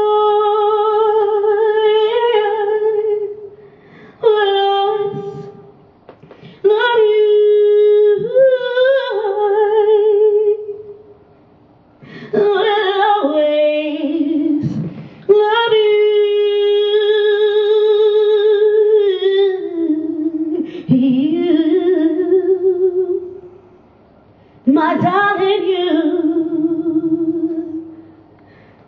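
A woman singing solo with no accompaniment, long held notes with wide vibrato in seven phrases, each broken by a short pause for breath.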